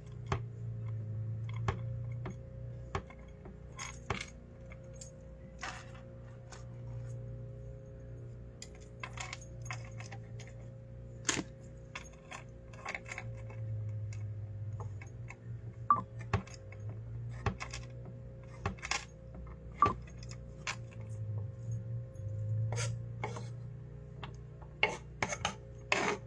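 Knife clicking and tapping against a wooden cutting board at irregular intervals as a block of cheese is cut into cubes, over a low steady hum.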